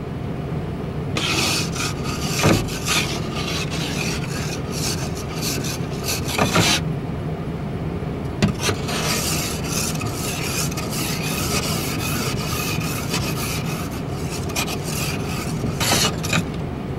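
Ice scraper scraping frost off a van's windshield, heard from inside the cab through the glass: repeated rasping strokes in two long runs, broken by a pause of about two seconds in the middle.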